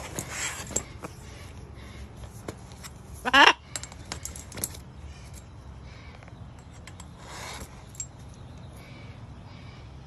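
A macaw giving one short, loud rising call about three seconds in, amid scattered clicks and taps of its feet and beak on a patio umbrella's metal frame. Two brief rustling swishes, near the start and about seven seconds in.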